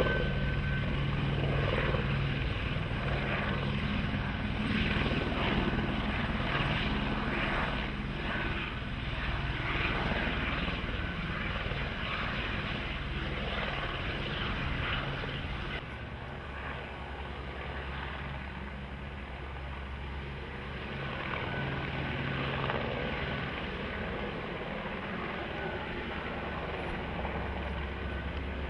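Helicopter running overhead, a steady low drone of rotor and engine under a dense rushing noise; the low drone shifts about sixteen seconds in.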